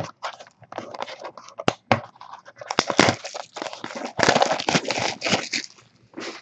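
Trading-card pack wrappers being torn open and crinkled by hand: irregular crackling and tearing, loudest in a burst about three seconds in and again from about four to five and a half seconds.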